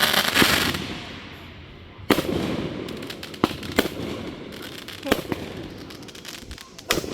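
Fireworks going off: a loud crackling burst at the start that dies away over about a second, then single sharp bangs at irregular intervals, about five of them.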